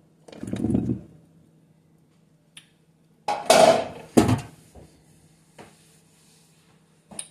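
Kitchen handling sounds as grapes and orange pieces are put into a bowl: a dull knock, then a louder rattling rush and a sharp knock about three to four seconds in, and a small click near the end.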